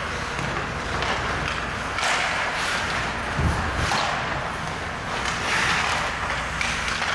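Ice hockey skate blades scraping and carving across the ice in repeated hissing strokes, with a dull thump about three and a half seconds in.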